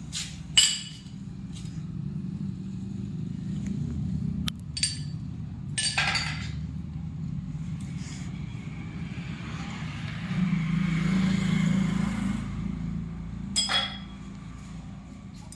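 Metal parts and tools clinking during motorcycle clutch work, a few separate clinks with the loudest about half a second in, over a steady low hum. A stretch of hiss comes in near the middle.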